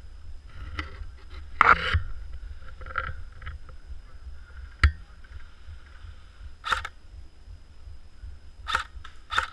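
Airsoft guns firing: scattered short sharp pops and clicks at irregular intervals, one very sharp crack about halfway through, over a steady low rumble of wind on the microphone.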